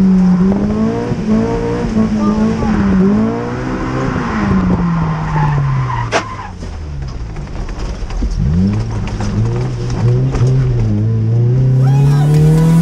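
Honda S2000 engine heard from inside the cabin, its revs rising and falling as the car slides on a wet track. The revs drop low in the middle and then climb steadily again. There is a sharp click about six seconds in, and music starts near the end.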